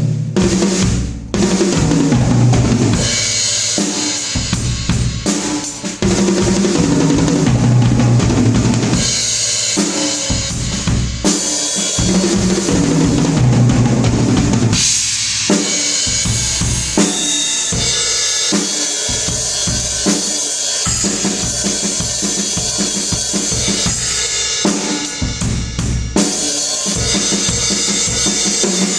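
Drum kit played continuously in a sound check: bass drum, snare and cymbals in a steady beat, with a few short breaks.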